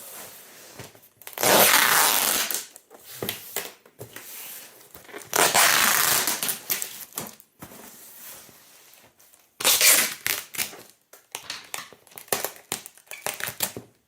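Amazon Basics packing tape being unrolled. It comes off the roll in three long pulls, each a loud, harsh tearing screech. Shorter crackles and rustles come between and after the pulls.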